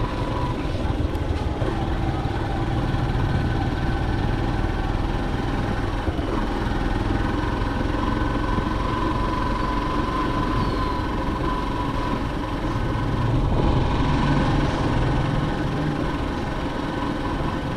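Motorcycle engine running steadily while the bike is ridden along a road, heard from the bike itself.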